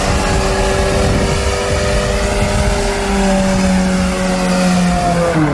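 A motor vehicle driving at speed: the engine drone sits under heavy, steady road and wind noise. Its pitch drops near the end as it slows.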